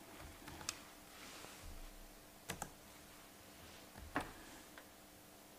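A few faint, sharp clicks at a desk, the clearest three coming about a second and a half to two seconds apart, over quiet room tone.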